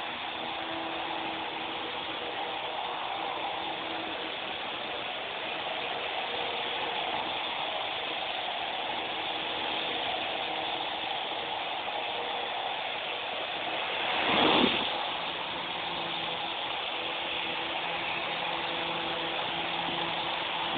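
Small battery-powered toy RC helicopter flying, its rotor and electric motor making a steady whir with a faint hum. The sound swells loudly for about a second roughly two-thirds of the way through.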